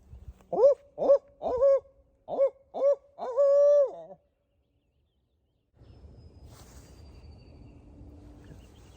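Barred owl locator call voiced by a turkey hunter to shock a gobbler into answering: a run of short rising hoots ending in one long drawn-out hoot, stopping about four seconds in.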